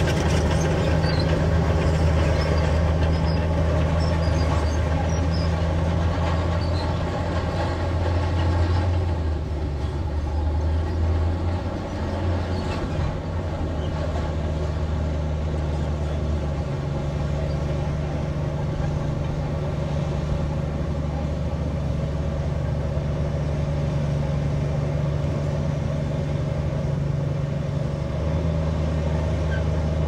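Bulldozer's diesel engine running steadily while working, a low drone whose note shifts about a third of the way in and again a little past halfway.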